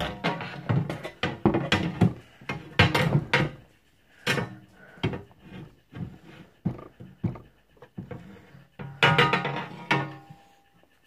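A run of irregular knocks and thuds from household objects being handled and set down, some with a short ringing tone. They come quickly at first, thin out in the middle and bunch again near the end.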